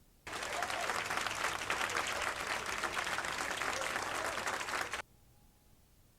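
Audience applauding in a small jazz club, heard on a cassette tape recording. The applause starts suddenly about a quarter second in and cuts off abruptly about five seconds in.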